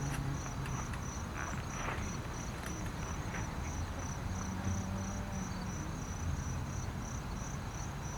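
Insects chirping outdoors: a high, even chirp repeating about four times a second, over a low background rumble.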